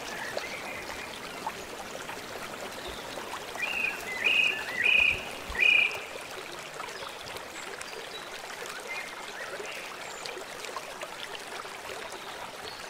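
Steady rush of flowing stream water. About four to six seconds in, four short high calls stand out above it.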